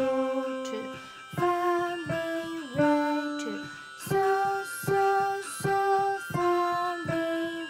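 Electronic keyboard played with the right hand: a simple melody of single notes, one at a time, on a slow steady beat of about one note every 0.7 seconds, with a short break about halfway.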